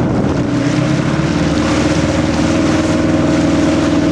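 Motorboat engine running at a steady pitch, with a noisy hiss of wind and water under it.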